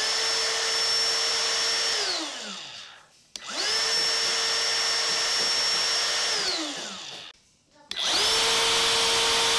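Ryobi P601 18V ONE+ cordless trim router, unloaded with an empty collet, switched on three times: each time it comes straight up to its single fixed speed of about 29,000 RPM and holds a steady high whine for a few seconds, then is switched off and winds down in falling pitch. The third run is still going at the end.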